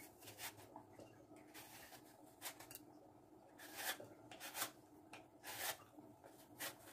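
Faint, irregular rubbing and swishing sounds of things being handled or wiped, about seven short soft strokes spaced roughly a second apart.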